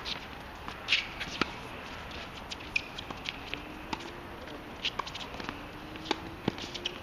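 Tennis ball being hit and bouncing on a hard court during a rally: short, sharp pops scattered a second or so apart, with shoe scuffs on the court surface.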